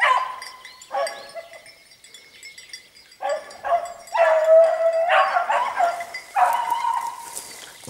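Beagle baying in repeated calls, several short and one longer drawn-out call about four seconds in: a hound giving tongue while trailing a hare.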